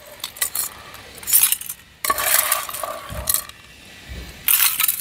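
A utensil scraping and clinking against a pan as cooked clams, mussels and cherry tomatoes are scooped into a container, with the shells clattering. The sound comes in several short bursts.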